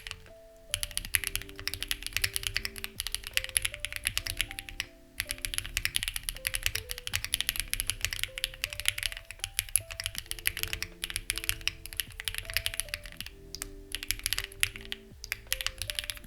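Fast typing on a Lucky65 v2 mechanical keyboard with stock, unlubricated HMX Ziwei switches and CMK-style keycaps: a dense run of key clicks that stops briefly near the start and again about five seconds in. Soft background music with held notes plays underneath.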